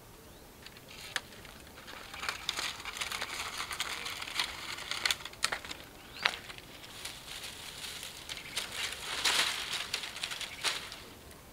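Dry leaves and twigs crackling and rustling irregularly as a small campfire is lit and fed, busiest about two seconds in and again near the end.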